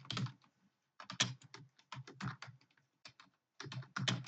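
Fast typing on a computer keyboard: rapid keystrokes in quick bursts separated by short pauses.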